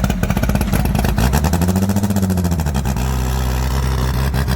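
Loud race car engine running at a rough, pulsing idle, revved once briefly about a second and a half in and dropping back to idle.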